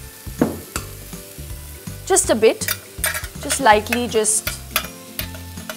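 Food sizzling in a pan on the stove, with short scraping as fingers spread olive oil across a ceramic baking dish.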